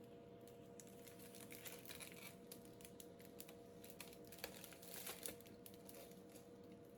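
Faint crackling and rustling of protective plastic film being peeled off a tempered-glass PC case panel, in small irregular crackles with a few sharper clicks a little past halfway.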